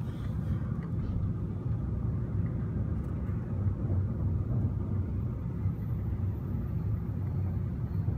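Steady low rumble of a Narita Express train running, heard from inside the passenger car.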